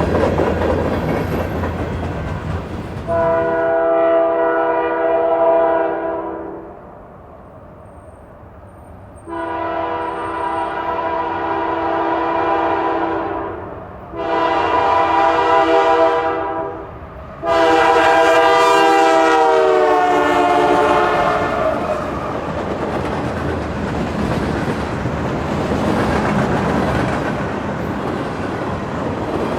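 Nathan Airchime K3L three-chime locomotive air horn sounding four blasts, the third shorter: the long-long-short-long grade-crossing signal. The last blast drops slightly in pitch as the locomotive passes, and the rumble and clickety-clack of the passing freight train carries on underneath.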